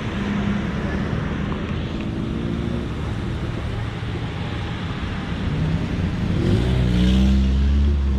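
A motor vehicle engine running, with a steady low hum, then rising in pitch and growing louder about six and a half seconds in as it speeds up.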